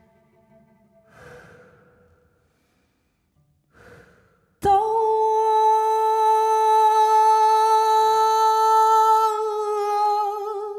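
Two soft breaths, then about halfway in a woman's voice starts one long wordless held note, steady at first, wavering with vibrato near the end as it fades.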